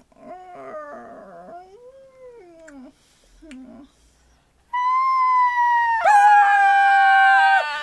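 Wordless, high-pitched puppet vocalising: wavering, gliding whines and hums, then a long held wail starting a little past halfway, joined about a second later by a second voice holding its own note.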